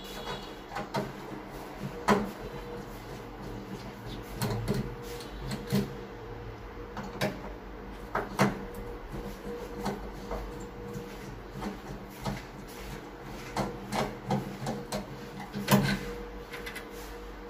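Hand screwdriver backing two wood screws out of a door lock's latch faceplate: scattered small clicks and scrapes of the bit turning in the screw heads.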